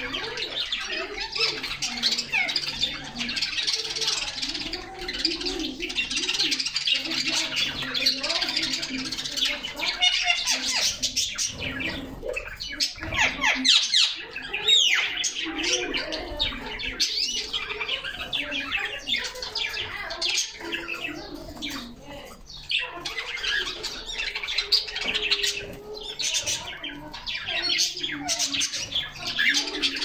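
Canaries chirping and singing over one another in a dense, continuous chorus of short high calls and trills.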